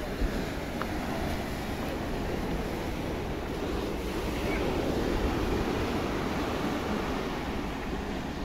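Steady rushing of sea surf and wind, swelling a little about halfway through, with one short bump just after the start.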